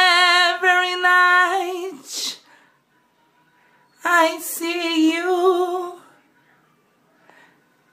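A voice singing long held notes without accompaniment, in two phrases of about two seconds each with a silent pause between. The room is small and echoey.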